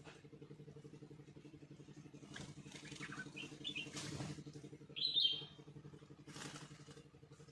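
Small birds chirping: a few short chirps about three seconds in and a louder call about five seconds in, with brief rustles of wings. Under them runs the steady, even hum of an engine.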